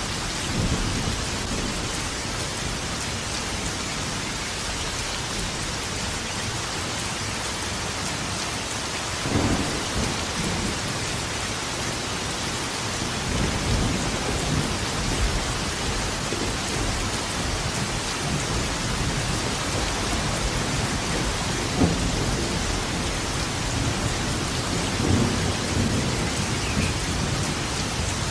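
Steady rain falling, with thunder rumbling low several times over it; the loudest claps come about nine seconds in and again a little past twenty seconds.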